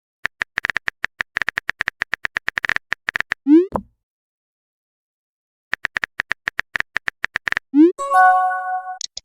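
Smartphone chat sound effects: two runs of rapid keyboard typing clicks, each followed by a short sweep as a message is sent, and near the end a brief message-notification chime.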